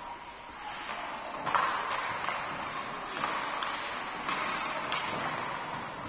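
Hockey skate blades scraping and carving on rink ice, with a few sharp knocks of sticks and puck; the loudest knock comes about one and a half seconds in.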